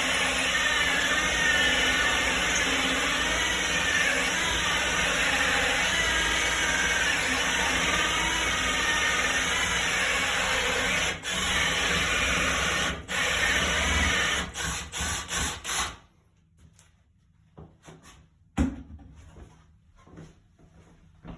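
Drill spinning a 2-1/8 inch hole saw through wood, the motor's pitch wavering as the saw cuts. It stops briefly twice, runs in a few short trigger pulses, then stops about 16 seconds in, followed by a few light knocks.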